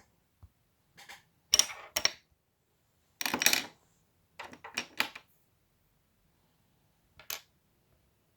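Hard plastic LEGO pieces clicking and clattering in short, separate bursts, with one longer rattle of about half a second in the middle.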